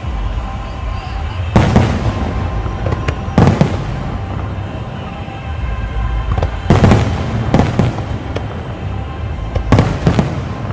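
Aerial fireworks bursting in about six loud bangs, a second or a few seconds apart, over a continuous low rumble, with music playing under the show.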